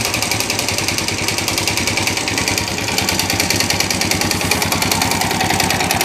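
Yamaha Sirius RC's single-cylinder four-stroke engine running steadily and very noisily. The mechanic puts the noise down to the engine running out of oil and a badly scored piston skirt and cylinder.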